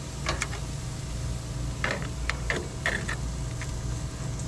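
Metal grill tongs clicking and scraping on a charcoal grill's grate while pork chops are turned: scattered sharp clicks, several in quick succession around the middle, over a steady low hum.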